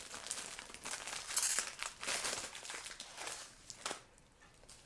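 Plastic and paper packaging of a decal kit crinkling and rustling as sticker sheets are handled and pulled out, dying away about four seconds in.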